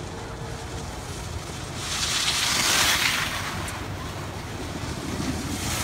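Wind rumbling on the microphone while skiing, with the hiss of skis scraping across packed, groomed snow, which swells about two seconds in and eases a couple of seconds later.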